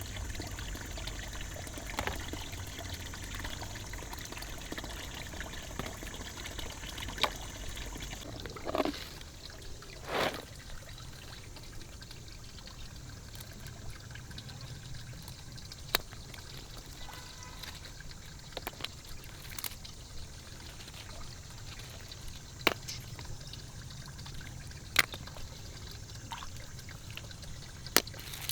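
Water pouring and trickling steadily, with scattered sharp clicks and knocks. A low hum drops away about eight seconds in.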